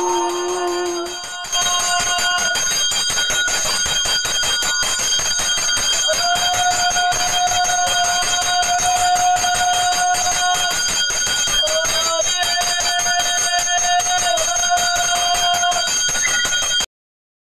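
Hand bell rung rapidly and continuously, as in a temple aarti, with a long held note sounding over it twice; everything stops abruptly near the end.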